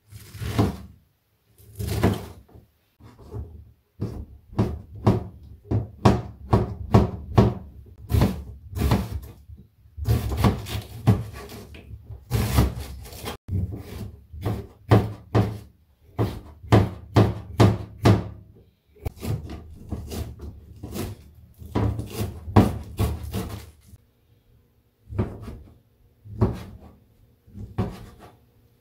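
Kitchen knife chopping food on a plastic cutting board, cutting enoki mushrooms, onion, green pepper and sheets of fish cake: a long run of sharp knocks as the blade strikes the board, irregular and often two to three a second, with a short lull about three-quarters of the way through.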